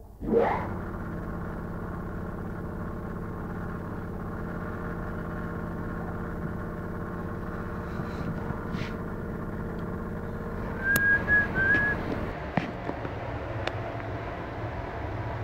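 A motor starts up with a quick rising whine, then runs with a steady hum. A few faint clicks and a brief high squeak come through about two-thirds of the way in.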